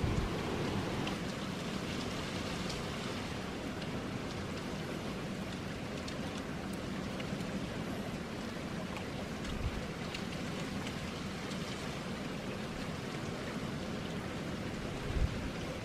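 Steady rain falling on a wet tarmac road and pavement, a constant hiss with faint scattered drop ticks and two brief low thumps.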